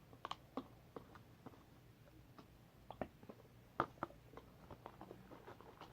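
Faint, irregular small clicks and sticky ticks of slime being mixed and worked in a container as the glue and activator set, with a louder tap a little under four seconds in.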